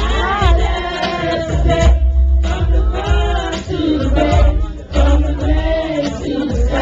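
Congregation or choir singing a gospel hymn in unison, with a steady low drum beat under the voices.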